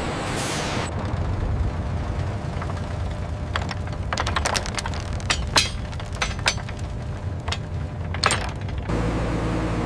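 A low rumble with a run of sharp, irregular knocks and clacks, like wood or machine parts striking. Near the end it gives way suddenly to a steady, low engine drone.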